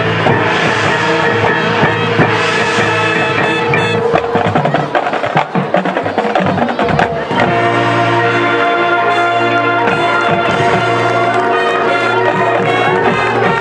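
High school marching band playing its field show: held brass chords, broken in the middle by about three seconds of drum and percussion hits, then full held chords with a deep bass note again.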